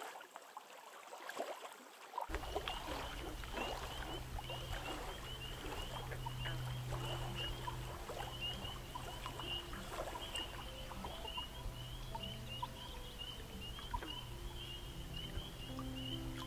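Evening chorus of frogs: many short, high peeps repeating densely without a break, over a low steady hum. About halfway through, soft held music notes come in underneath.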